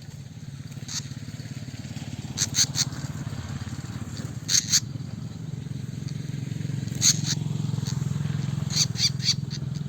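A small engine running steadily close by, a little louder in the second half, with short high bird chirps breaking in several times over it.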